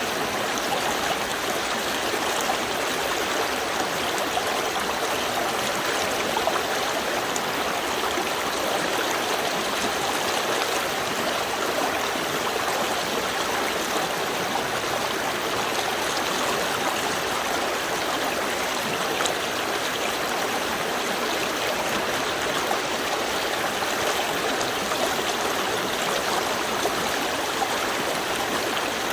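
Small stream flowing steadily, a continuous rush of water with light gurgling and trickling.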